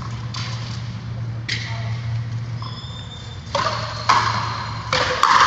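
Frontenis rally: rackets hitting the ball and the ball smacking against the frontón wall, about five sharp hits at uneven intervals, the loudest near the end. A steady low hum runs underneath.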